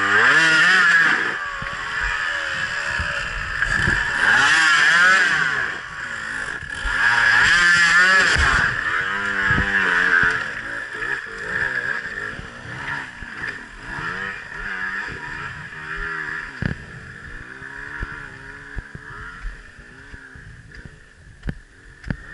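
Husqvarna enduro dirt bike engine revved hard in three rising and falling bursts while pulling up a steep slope, then running lower and unevenly and fading as the bike rides away. A few sharp knocks near the end.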